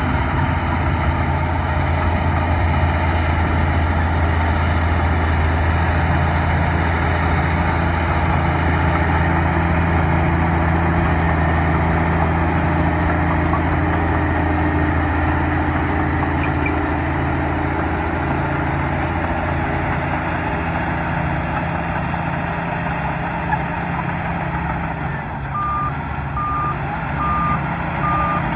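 Bulldozer's diesel engine running steadily under load. A few seconds before the end its backup alarm starts, beeping about twice a second as it reverses.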